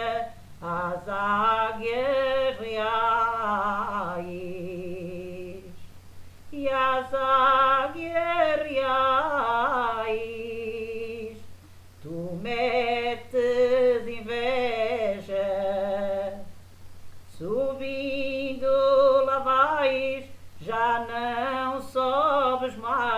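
A woman singing a cantiga alentejana (Alentejo folk song) unaccompanied, in phrases with vibrato and long held notes, with short pauses between the lines. A steady low hum runs underneath.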